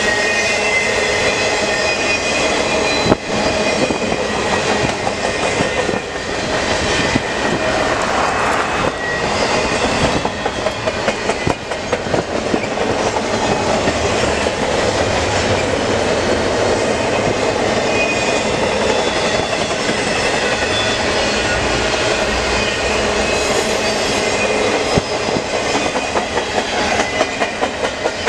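A double-stacked intermodal container freight train rolls past at close range, with a steady rumble and clatter of steel wheels on rail. Faint high squealing tones from the wheels come and go, and there is a sharp clack about three seconds in.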